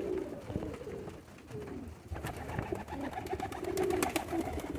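Domestic pigeons cooing softly, with a few faint clicks and taps among them.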